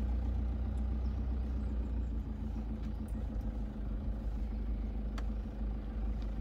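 Steady low engine and road rumble inside a car cabin, driving slowly along a sand track, with a few faint clicks.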